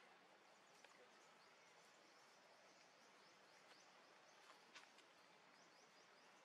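Near silence: faint outdoor background with repeated short, faint high chirps and a couple of faint ticks.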